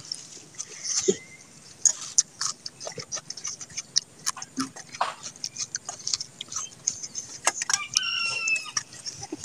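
Close-up eating sounds: wet chewing and lip smacks as rice is eaten by hand from a metal plate, with many short clicks. Near the end a chicken calls briefly.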